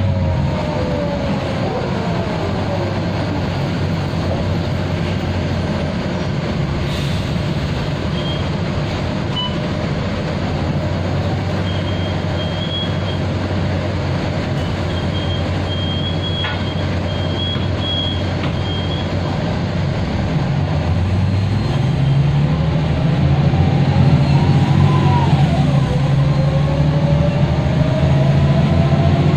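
Mercedes-Benz O405G articulated bus heard from inside, its ZF automatic gearbox giving an unusually loud, draggy howl. The howl falls away at the start and the engine runs low and steady for a long stretch, with a few short high beeps in the middle. About three-quarters of the way through it grows louder, with the howl climbing, dropping once and climbing again.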